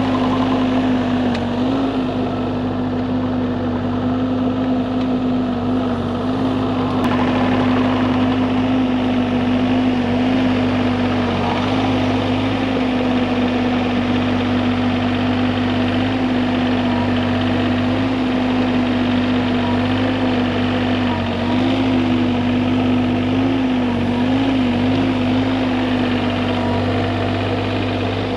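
Bobcat E35 compact excavator's diesel engine running at a steady speed, with a few small wavers in pitch about two-thirds of the way through.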